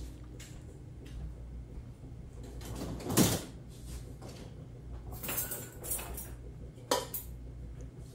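Dishwasher being emptied: the rack handled and dishes lifted out, giving a handful of light knocks and rattles. The loudest is a brief clatter about three seconds in, with a sharp click near the seven-second mark.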